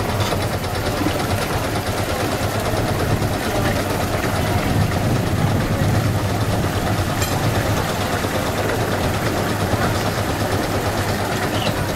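Tour boat engine idling: a steady low hum with a rumble, constant throughout.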